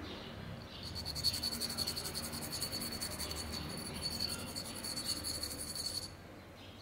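An insect trilling in a fast, even pulse at a steady high pitch, stopping suddenly about six seconds in.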